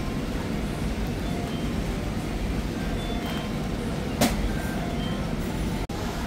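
Steady low rumbling background noise, with one sharp click about four seconds in.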